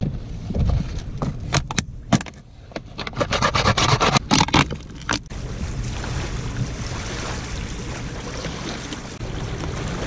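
A knife cutting into a thin plastic bottle: a run of sharp clicks and crinkling crackles, densest about three to five seconds in. It then gives way abruptly to steady wind and lapping water at the river's edge.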